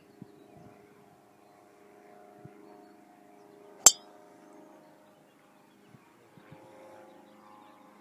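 A driver's metal clubhead striking a golf ball off the tee, a single sharp, high-pitched 'ting' about four seconds in, over a faint steady drone.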